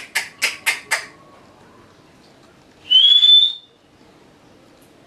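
A quick run of sharp clicking sounds, about four a second, that stops about a second in, then a single short whistle rising in pitch about three seconds in.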